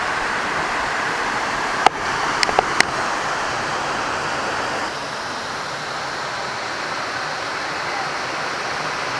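Small waterfall and rapids rushing steadily, with a few sharp clicks about two seconds in.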